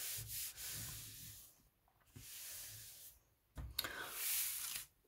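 Hands rubbing paper, smoothing white cardstock down onto cardboard stuck with double-sided tape. It comes in three rubbing strokes of about a second each, with short gaps between them.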